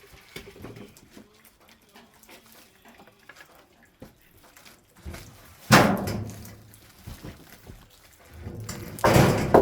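Two heavy wooden thunks about three seconds apart, the second one longer: pieces of timber or firewood being dropped or set down.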